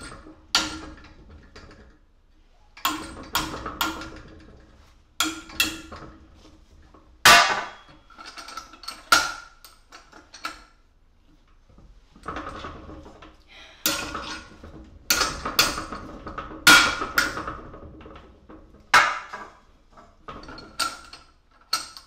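Hand hammer striking a steel stem clamped in a bench vise to bend it, with irregular blows in clusters of two to four, each with a short metallic ring. Around the middle there is a quieter rattle as the vise handle is worked to re-set the piece.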